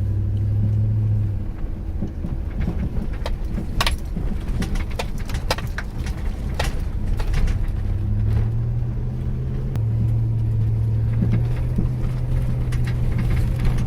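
Pickup truck climbing a mountain road, heard from inside the cab: a steady engine drone that rises in pitch about eight seconds in, over road noise with scattered clicks and rattles.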